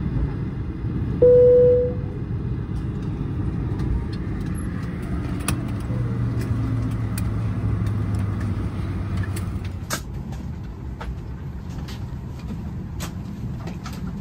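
Airliner cabin at the gate: a steady low hum from the cabin air system, with a single chime tone about a second in, the loudest sound. From about ten seconds on, scattered clicks and knocks come from passengers moving down the aisle.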